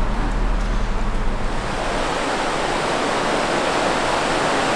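Steady rush of river water spilling over a low concrete weir and through its culvert pipes. It grows fuller about two seconds in, as a low hum dies away.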